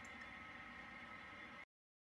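Faint steady hiss and hum of room tone, cutting off to dead silence about a second and a half in.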